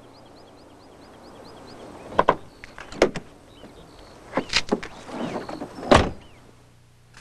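Car door handled: a few latch clicks and knocks, then a solid car door slam about six seconds in, the loudest sound. Faint bird chirps repeat during the first two seconds.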